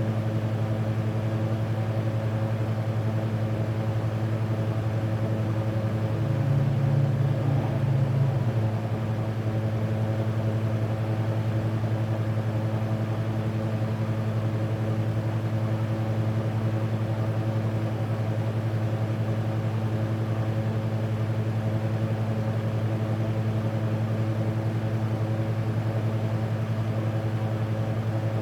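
Dead air on a NOAA Weather Radio broadcast: a steady low electrical hum with several overtones and light hiss. A second, slightly higher hum tone joins and the level rises briefly from about six to eight and a half seconds in.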